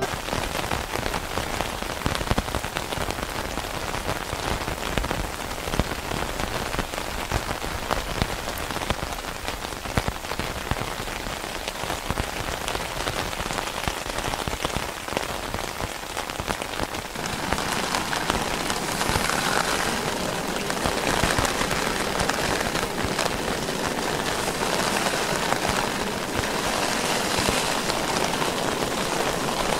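Heavy rain falling on a Dutch army canvas tent, heard from inside it. The rain grows heavier a little past halfway and comes in waves from then on.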